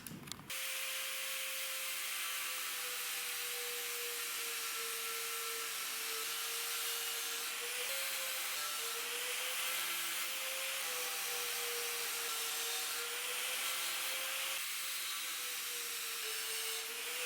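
Electric power tool working metal: a steady motor tone that dips and recovers slightly in pitch under load, over a continuous grinding hiss. It starts about half a second in.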